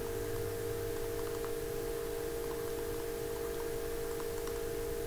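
Steady electrical mains hum in the recording, with a few faint scattered ticks from a stylus writing on a tablet screen.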